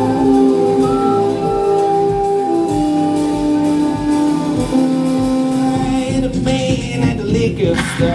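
Music with singing: long held notes over a steady backing, growing busier, with noisier hits in the last couple of seconds.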